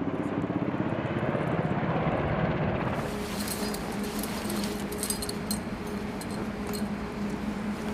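Steady mechanical drone with a low hum. The sound changes about three seconds in, and scattered clicks come after the change.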